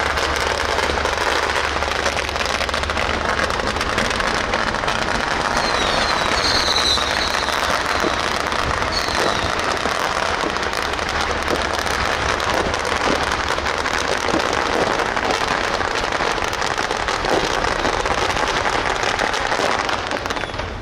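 Strings of firecrackers going off in a continuous, dense crackle of rapid bangs, easing off just before the end.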